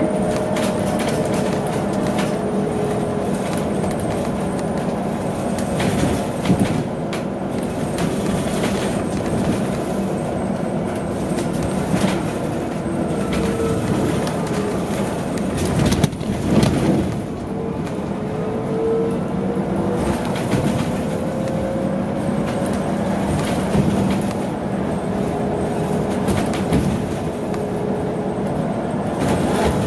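Interior noise of a large BYD battery-electric bus under way: tyre and road rumble with rattles and knocks from the body and fittings, and the electric drive's whine gliding up and down in pitch as the bus speeds up and slows.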